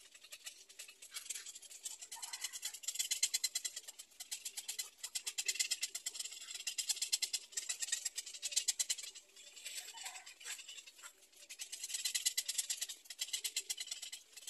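Rapid high-pitched ticking buzz, like an insect chorus, that swells and fades in waves every second or two.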